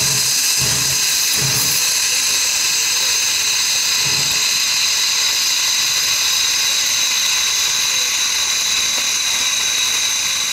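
Steam hissing steadily from around the cylinders of standing steam locomotive Pennsylvania Railroad No. 331.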